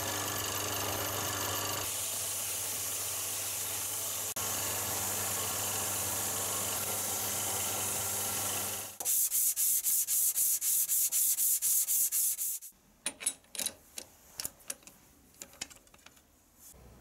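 A wood lathe runs with a steady hum while a flat file and then abrasive paper rub against the spinning maple spindle. About nine seconds in the lathe hum stops and quick, even rubbing strokes follow, about three or four a second and the loudest part. Then come a few light metallic clicks from the lathe's four-jaw chuck being worked with its key.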